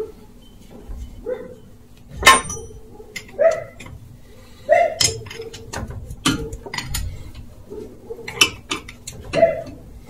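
Irregular clinks and knocks of hand tools and metal parts on the underside of a Mitsubishi Pajero, some with a short metallic ring, over a faint steady hum.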